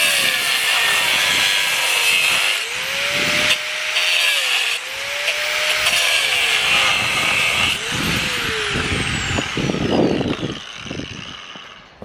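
Angle grinder with a cutting disc cutting steel. Its motor pitch sags under load and recovers several times over a steady hiss. Near the end the grinder is released and its disc winds down with a falling whine.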